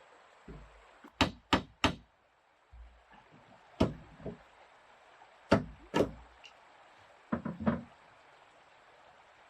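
A mallet driving wooden pegs into timber: about nine sharp knocking blows in short groups of two or three, with pauses between, stopping about 8 seconds in.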